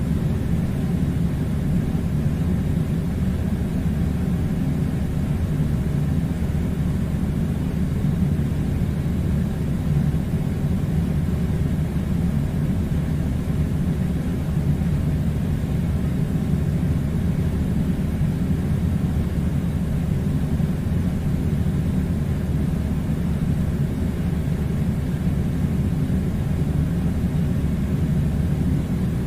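Air conditioner running with a steady low rumbling hum that does not change.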